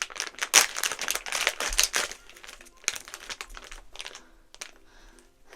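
Blind-bag toy packaging crinkling and rustling as it is torn open by hand, dense at first and then thinning to scattered crackles and small clicks.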